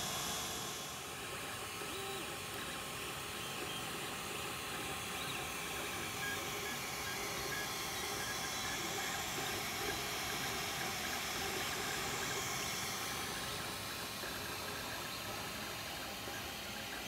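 Alfawise U30 3D printer running a print: a steady hiss from its cooling fans, with faint stepper-motor tones as the print head moves.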